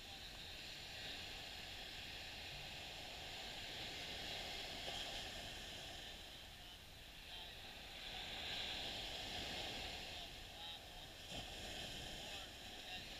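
Small ocean waves washing up on a sandy beach: a soft, steady hiss of surf that swells and eases twice, with a low rumble of wind underneath.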